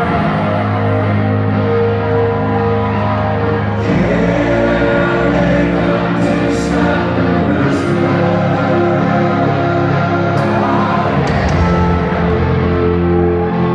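Rock band playing live in a hall: slow, sustained distorted guitar chords over bass and drums, the chord changing about four seconds in and again near the end.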